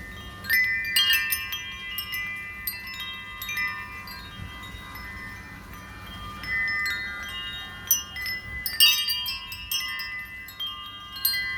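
Metal wind chime tubes ringing, struck against each other in irregular clusters of clear, overlapping tones that ring on and fade, with the busiest flurries about a second in and about nine seconds in.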